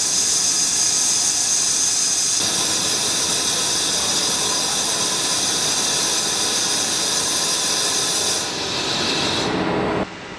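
VTC60 CNC vertical lathe turning a wheel hub: a steady, loud hiss of machining noise from the spinning workpiece and cutting tool. The sound changes abruptly about two and a half seconds in and drops sharply near the end.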